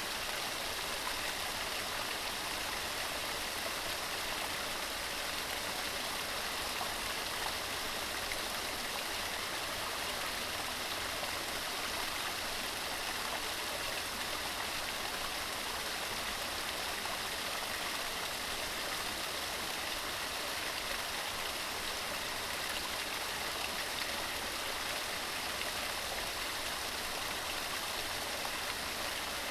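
Fell stream tumbling over rocks, a steady rushing and splashing without pause.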